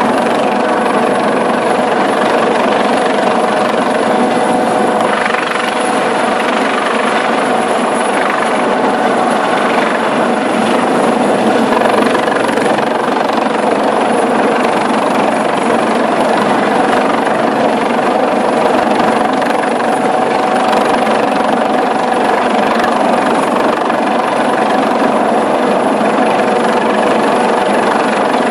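Eurocopter AS365 Dauphin helicopter hovering low overhead: a loud, steady din of rotor and turbines with a thin high whine on top.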